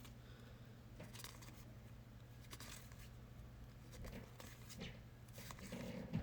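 Faint rustling and scraping of trading cards being handled and slid through by hand, a few short soft strokes over a low steady hum.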